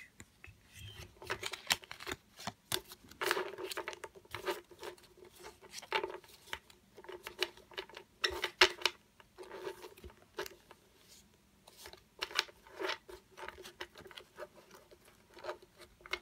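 A stack of Pokémon trading cards being gathered and squared on a wooden table: irregular slaps, clicks and riffles of card against card and against the tabletop, the loudest clusters in the middle.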